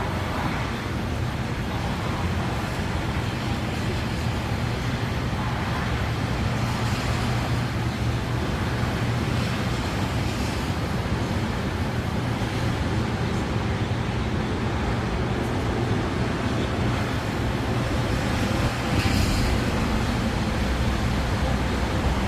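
Strong wind blowing across the microphone: a steady low rushing noise, louder for a moment about nineteen seconds in.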